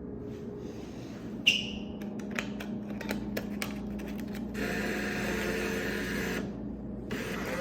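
Vending machine in operation: a sharp ringing click about a second and a half in, then a string of clicks, then a mechanical whirring for about two seconds, and a short rattle near the end.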